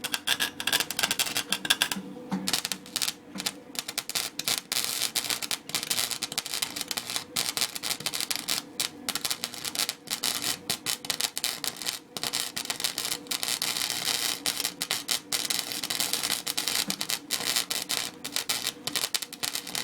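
Wire-feed welder arc crackling steadily as a weld bead is run, with many short breaks where the arc drops out; it stops at the very end.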